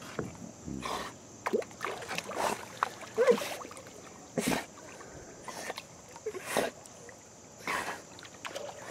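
A dog swimming in a pond, its paddling making irregular splashes, sloshes and gurgles of water, about one or two a second.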